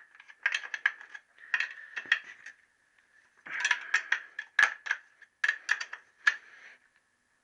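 A steel spanner clinking on the head-steady nuts and bracket of a Triumph T120R Bonneville's cylinder head: bunches of short metallic clicks and taps, with a pause of about a second near the middle.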